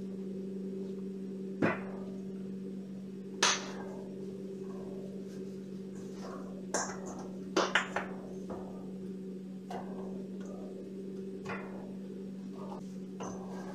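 Scattered sharp clinks and knocks against a stainless steel bowl as hands rub baking soda into raw pork chops, about half a dozen spread through, over a steady low hum.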